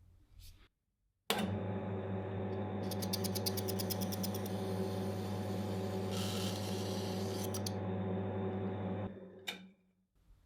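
An electric workshop machine switches on about a second in and runs steadily with a low hum. It has a stretch of rapid, even ticking and later a brief hiss as work is done on it, then stops about nine seconds in.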